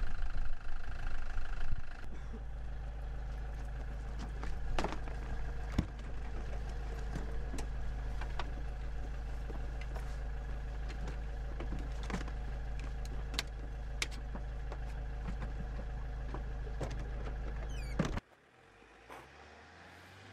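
Motorhome engine idling with a steady low hum, with scattered clicks and knocks of the door, step and luggage as people climb aboard. Near the end the sound drops suddenly to a faint low rumble of the motorhome driving away.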